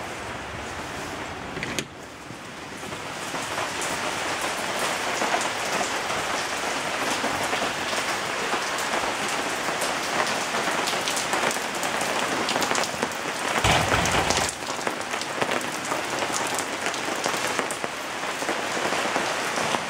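Steady rain pattering on wet pavement and the building, getting louder about two seconds in, with a brief heavier rush for about a second past the middle.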